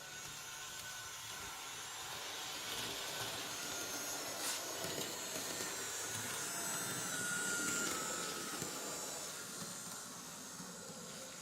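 Electric motor and drive of a Märklin 37806 H0 model locomotive running with its digital sound switched off: a steady whirr with a faint high whine. It grows louder to about two-thirds through, then fades.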